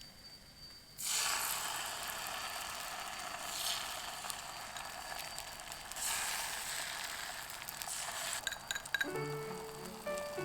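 Food sizzling in a hot frying pan. The hiss starts suddenly about a second in, as something goes into the pan, and runs steadily until a few sharp clinks near the end, after which light background music begins.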